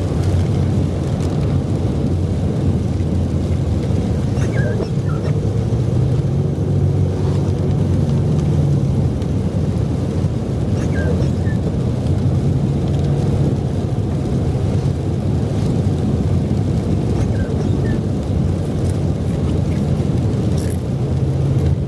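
Vehicle driving, heard from inside the cab: a steady low engine and road rumble, its engine pitch slowly rising and falling.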